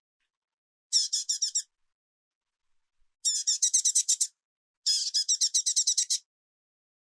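A bird singing: three bursts of rapid high chirps, each about a second long, with short silent gaps between them.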